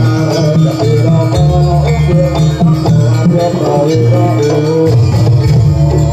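Live East Javanese jaranan ensemble music: a wavering melody line over sustained low tones and steady drum strokes.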